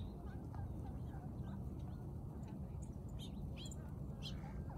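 Birds chirping a few short calls, mostly in the second half, over a steady low rumble.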